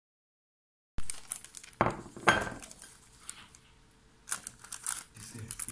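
Silence for about a second, then a block of tofu in its plastic wrap being handled on a plate: plastic crinkling among small clicks, with two sharp knocks about two seconds in.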